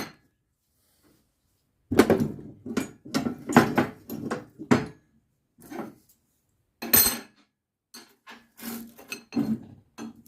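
Irregular metallic clanks and knocks of hand tools and steel parts being handled and struck while straightening and refitting a log splitter's bent legs, in a cluster, then one loud clank, then more light knocking.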